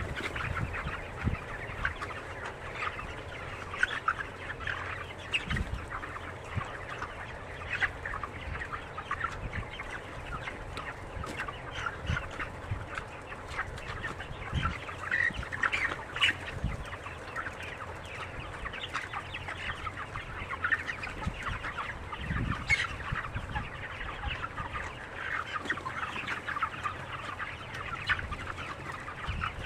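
A large flock of broiler chickens clucking and chirping together in a continuous, dense chatter, with a few brief low thuds.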